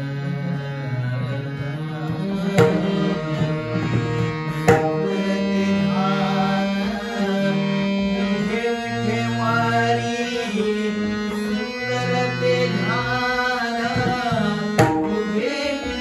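Marathi devotional bhajan music: a voice sings the abhang in long, gliding phrases over steady held accompanying notes, with a few sharp pakhawaj drum strokes.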